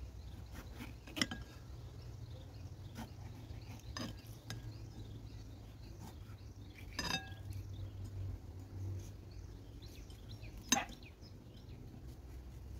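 Kitchen knife knocking and clicking against a ceramic plate while cutting open soft roasted red peppers. A few sharp clinks are scattered through, the loudest about a second in and near the end.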